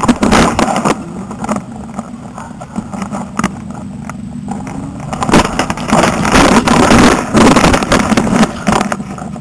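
Handling noise on a camera mounted on an animal control pole, pressed against a caught black Labrador that is pulling against the pole: repeated knocks and rubbing, loudest for a few seconds past the middle.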